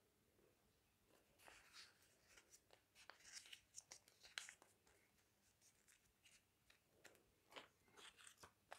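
Faint rustling and crinkling of small folded paper slips being handled and unfolded by hand, in short scattered bursts in the first half and again near the end.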